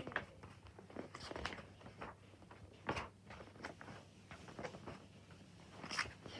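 Scattered rustles, soft knocks and clicks from handling a paper colouring book and the phone, the loudest about three seconds in and again near the end.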